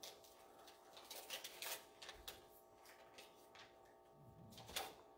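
Faint rustling and crackling of a paper note being unfolded and handled, in a few short bursts, over a faint steady hum.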